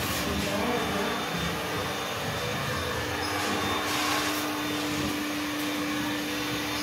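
A motor running steadily: an even machine drone with a constant low hum.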